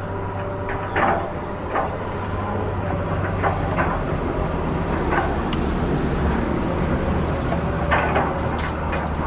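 Small electric motor of a toy excavator whirring steadily, with short clicks and scrapes coming every second or so.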